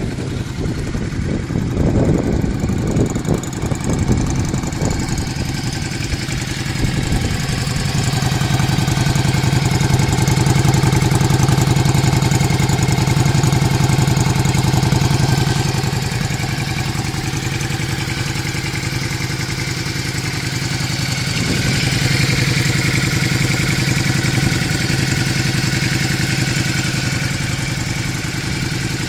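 Yamaha Drag Star 400 Classic's V-twin running at idle through a Kentec exhaust with its brass-tip silencer insert fitted, a steady low exhaust note that swells a little twice and settles back.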